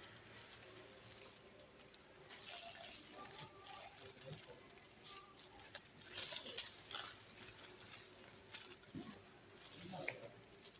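Packaging being handled: scattered rustling and crinkling with light taps and clicks, coming and going irregularly.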